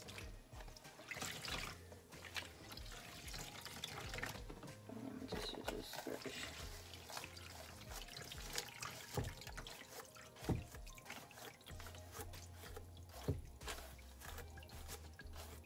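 Water splashing and dripping as a wet wig is dipped and worked in a plastic tub of soapy water in a sink, then brushed through with a hairbrush. There are a few sharp knocks in the second half, and a low hum comes in about three-quarters of the way through.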